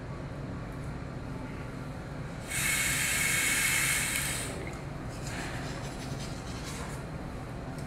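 Aerosol spray can hissing in one steady spray of about two seconds, a few seconds in, followed by the faint scrubbing of a toothbrush on teeth, over a low steady hum.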